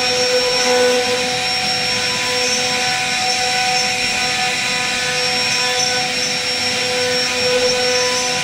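CNC router spindle running at a steady high whine while its bit cuts into a wooden door panel, with a rough cutting hiss from the wood over the whine.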